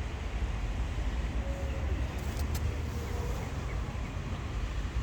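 Steady low rumble of outdoor street background noise, like passing traffic, with a couple of faint clicks about two and a half seconds in.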